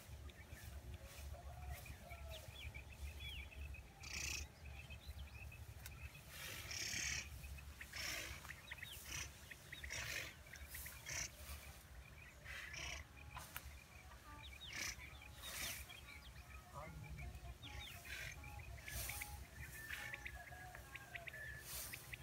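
Faint rustling of standing wheat as a quail net is drawn through it, in short irregular swishes, with brief bird chirps scattered throughout.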